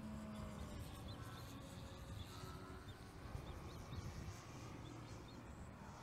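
Faint open-air ambience: small birds chirp now and then over a low steady rumble. A faint steady hum from the distant electric motor and propeller of the XR-61 RC airplane runs beneath.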